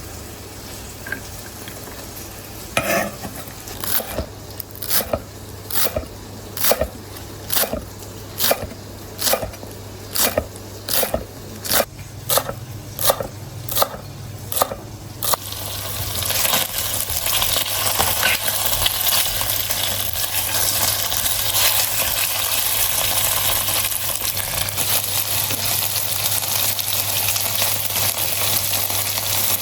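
A kitchen utensil tapping in a steady rhythm, about two strokes a second, for roughly the first half. About halfway through the tapping stops and food starts sizzling steadily in a hot frying pan.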